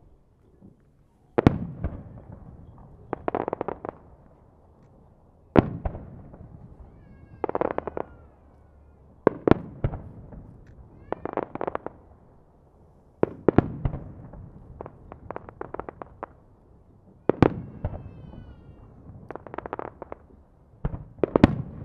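Aerial fireworks display: sharp shell-burst booms about every four seconds, each followed about two seconds later by a rattle of crackling pops. A faint falling tone sounds twice, about a third of the way in and again near the end.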